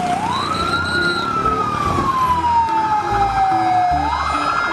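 Fire-engine siren wailing: its pitch sweeps up quickly, falls slowly over about three seconds, then sweeps up again near the end.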